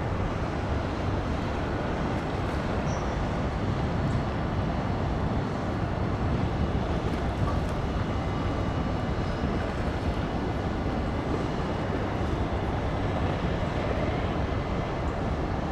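Steady low rumble of a tugboat's diesel engine working as it pushes against a ship's hull.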